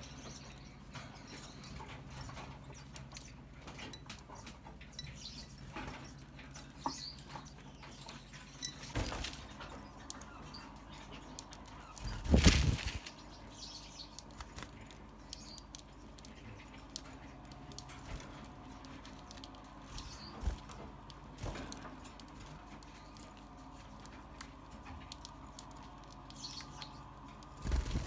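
Finches in their cage or aviary chirping faintly and fluttering, with scattered small clicks and occasional knocks. The loudest knock comes about twelve seconds in.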